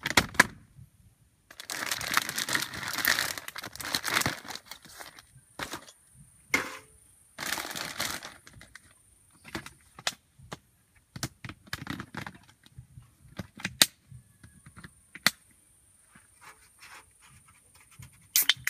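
Plastic bag rustling and crinkling as things are rummaged out of it, in two long spells in the first half, with scattered sharp clicks and knocks of small objects handled and set down on a table.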